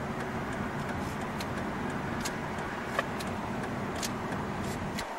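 Steady background noise of car traffic on the highway, with a few faint clicks scattered through it.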